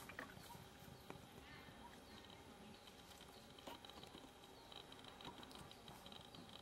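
Quiet outdoor ambience: faint scattered taps and rustles, with short high chirps repeating through the second half.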